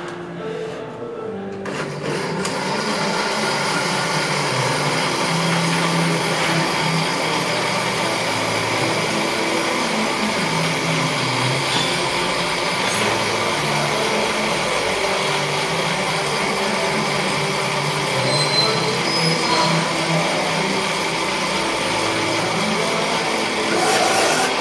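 Countertop blender running steadily as it blends a protein shake, starting about two seconds in.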